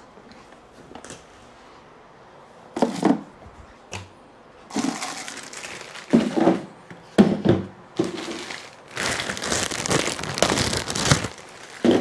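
Plastic parts bag crinkling as it is handled and opened, loudest in a long stretch near the end, with a few separate knocks of hard plastic parts being handled.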